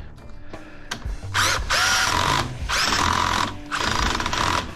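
Power drill backing screws out of an aluminum shower door frame, run in three bursts of about a second each, with a thin squeal from the turning stainless steel screw.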